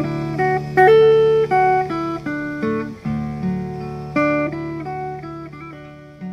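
Solo guitar music: plucked notes ringing and decaying over a held low bass note, with fresh groups of notes struck about every second. It dies away near the end.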